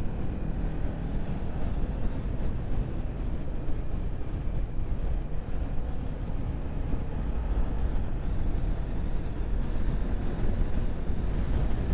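Motorcycle riding at a steady road speed: engine hum under a heavy rush of wind and road noise.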